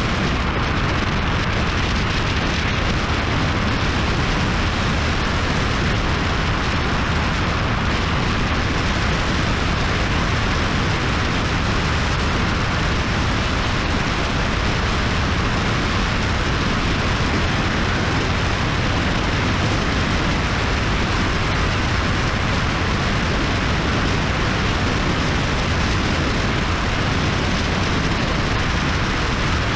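Steady rush of wind and road noise on a camera riding along on a moving motorcycle, an even hiss with a low rumble of engine and tyres beneath it.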